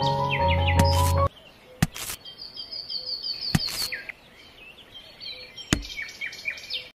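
Birds chirping in quick series of short, falling notes, with three sharp clicks among them. Before that, held musical tones end abruptly about a second in.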